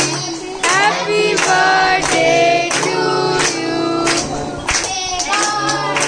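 A song with several voices singing together over a music accompaniment with a steady low note.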